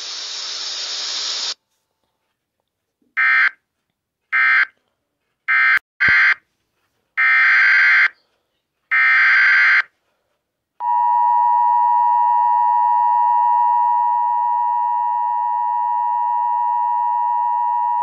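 Emergency Alert System audio. About a second and a half of hiss, then six short, harsh, buzzy SAME digital data bursts that carry the alert's coded header and end-of-message. Then, from about eleven seconds in, the steady two-tone EAS attention signal sounds for about eight seconds, marking the start of a new alert.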